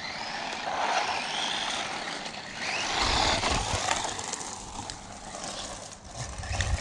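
Small DEERC 9300 1:18-scale electric RC truck driving hard: its motor and gears whine, rising and falling in pitch as the throttle is worked, over tyre noise on the ground. A low rumble joins about three seconds in.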